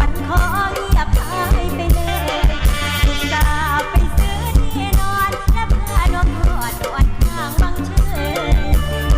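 Isan lam folk-opera band music: an ornamented, bending melody over a steady drum beat of about three strokes a second.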